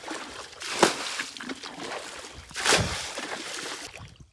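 Hands groping and splashing in shallow muddy water, with two louder splashes, about a second in and just under three seconds in.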